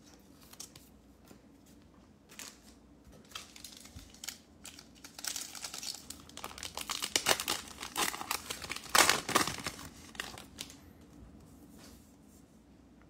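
Foil trading-card pack (2020 Panini Mosaic football) being torn open and its wrapper crinkled: a few scattered rustles at first, then a dense run of crinkling and tearing from about five to ten seconds in, loudest near its end.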